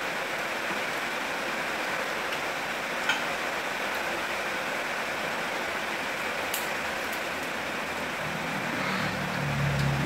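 Steady hiss of background noise with two faint clicks. A low sound builds near the end.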